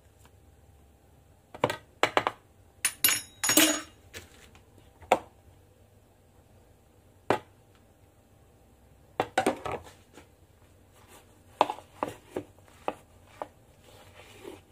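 Sporadic clinks and knocks of a spoon against a metal mixing bowl while flour is spooned into corn-fritter batter, with a rustle of the plastic flour bag about three seconds in and a run of quicker knocks near the end as the batter is mixed.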